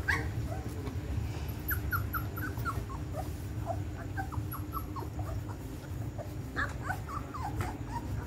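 Young puppies squeaking and whimpering in short, high, often falling cries as they jostle to nurse from their mother, with bunches of cries about two seconds in and near the end, over a low steady rumble.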